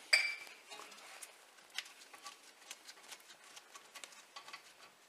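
Faint, scattered light clicks and taps of metal as gloved hands work the loosened bolts on a Land Rover Discovery 3 front brake caliper.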